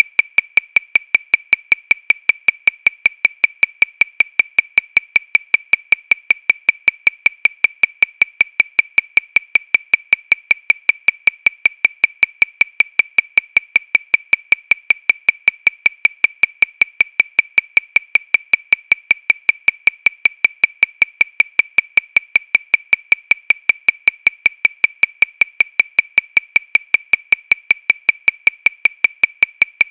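Metronome clicking steadily at 314 beats per minute, about five sharp, high-pitched clicks a second.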